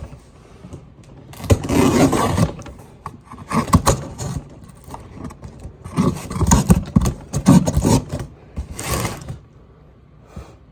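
Handling noise: irregular scraping and knocking of objects moved close to the microphone, in several bursts with sharp clicks.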